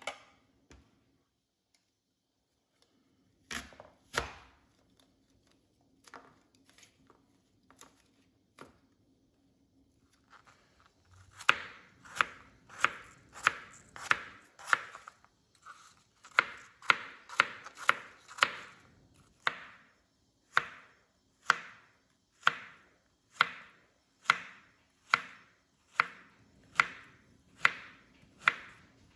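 Kitchen knife chopping fruit on a plastic cutting board. After a few scattered knocks, a long run of sharp knife strikes against the board begins, quicker while dicing apple and then steady at about one a second while slicing banana.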